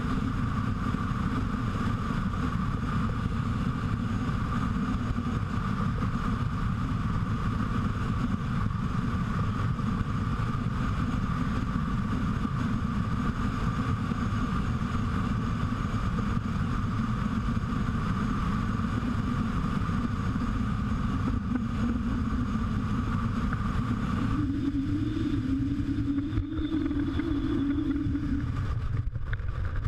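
Motorcycle running steadily at highway speed, its engine rumble mixed with wind rushing past. About 24 s in the sound changes: the upper hiss drops away and a humming note comes up for a few seconds.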